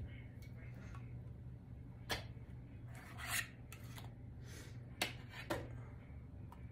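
A jar being handled and wiped on a counter: a few light knocks and clinks, about two, five and five and a half seconds in, with a brief rubbing swish a little past three seconds.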